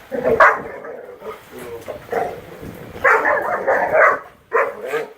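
Great Dane puppies barking and yipping as they play-fight, in short bursts: one near the start, a longer run of barks about three seconds in, and one more near the end.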